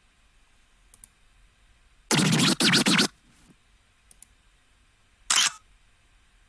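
Computer mouse clicks, with short preset sound effects played back in between. A loud double burst of noise comes about two seconds in, and a shorter single burst comes about five seconds in.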